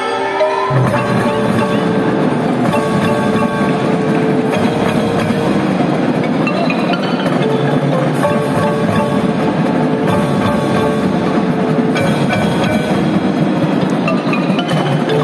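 Marching band playing: drums and mallet percussion (marimbas, xylophones) over sustained pitched lines, with the full band coming in about a second in.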